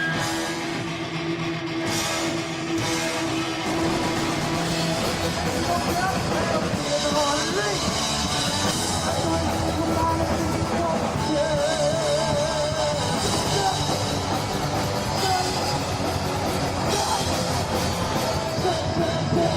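Heavy metal rock music, with a drum kit and singing.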